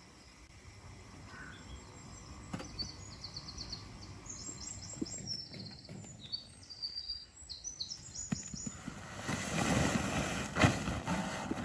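Outdoor ambience with small birds giving short, rapid high-pitched trills several times. Near the end a rustling noise grows louder, with one sharp click.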